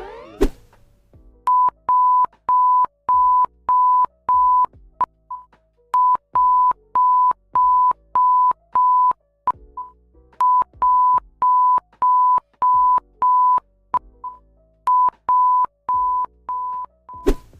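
Emergency alert alarm tone: a single high electronic beep, each lasting about a quarter of a second and repeated about twice a second. The beeps come in four runs of six or seven, with a short pause after each run, and faint clicks fall among them.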